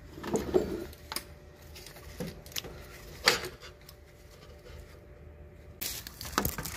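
Scattered clicks and light metal knocks from a steel bracket and tools being handled under a van's transmission, the sharpest knock about three seconds in, with a brief run of clatter near the end.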